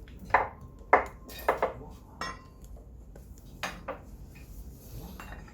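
Sharp metallic clinks and taps, about seven of them in a few seconds, some ringing briefly, from metal brake parts and hand tools being handled while front disc brake pads are fitted.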